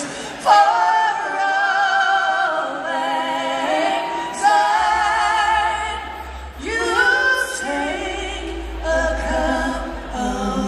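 Live concert singing: long held notes with vibrato from several voices together, choir-like, with a low bass note coming in about five seconds in.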